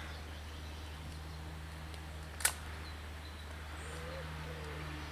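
A single sharp click about halfway through, over a steady low hum. Near the end a low, wavering bird call begins.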